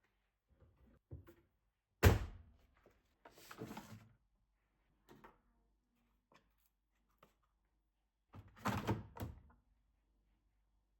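Household handling sounds: one sharp thunk about two seconds in, like a door or heavy object being shut or set down, then a short rustle, a few faint clicks, and a quick cluster of knocks and clatter near the end.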